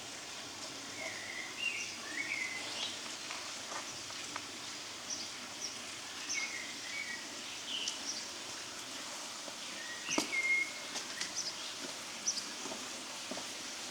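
Small songbirds chirping in short, scattered calls over a steady background hush, with a few soft knocks.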